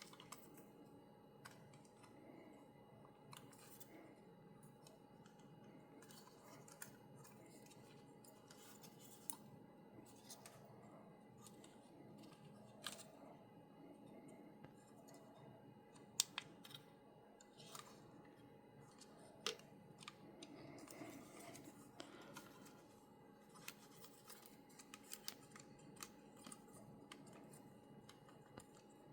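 Quiet handling noise: sparse, irregular small clicks and taps, more frequent in the second half, as of a plastic action figure and its packaging being handled. A faint steady hum runs underneath.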